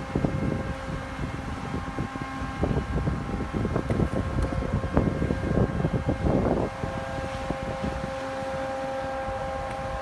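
Prototype LNG tank-container unloading rig running on test, its motor unit giving a steady whine of several constant tones. Irregular low rumbling gusts, like wind on the microphone, sit over it and ease off about seven seconds in.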